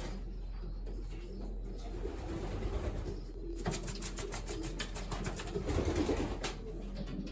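Racing pigeons cooing, a low, steady murmur, with a short burst of rustling about halfway through.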